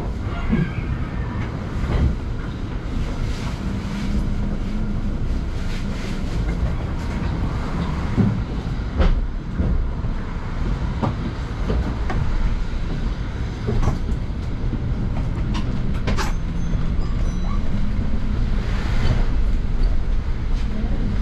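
Riding inside a moving bus: a steady low rumble of engine and road, with frequent short rattles and knocks from the bodywork.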